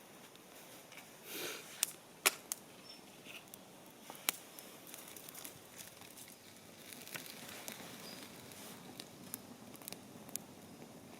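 Wood campfire crackling: scattered sharp pops and snaps at uneven intervals, the loudest about two seconds in, over a faint hiss of the burning logs.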